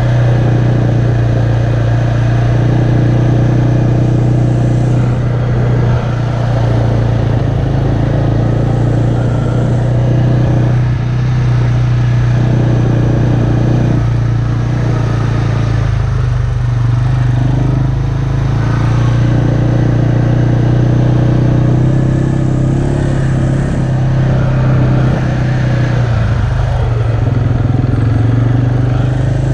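ATV engine running steadily at low speed, its note easing briefly a few times as the throttle is let off and picked up again.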